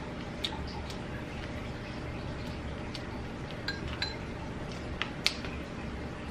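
Close-up eating of crispy fried chicken: scattered short crunches, mouth clicks and light clinks over a steady low hum, the sharpest click about five seconds in.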